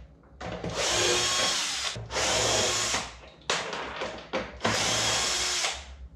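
Cordless drill-driver running in four short stop-start spurts, the first the longest, as it backs out the screws holding a turn-signal lamp to the cabin's rear cladding.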